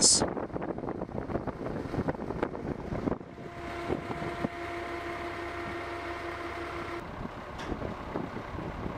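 Construction-site machinery noise with wind on the microphone. From about three seconds in to about seven seconds, a machine holds a steady hum.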